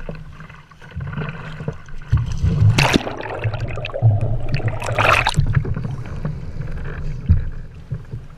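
Water sloshing and splashing around a bow-mounted camera on a sea kayak being paddled, with choppy low rumbling and two louder splashes about three and five seconds in.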